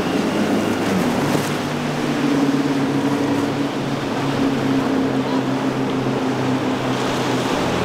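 Formula sport cruiser running at speed through choppy water: a steady engine drone over the rush of hull spray and waves.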